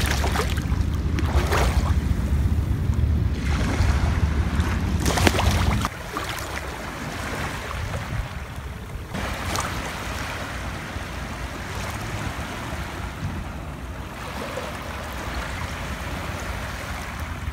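Small waves washing up and draining back over sand at the water's edge, a steady hiss with a few swells. Wind rumbles on the microphone over the first six seconds or so and drops away suddenly.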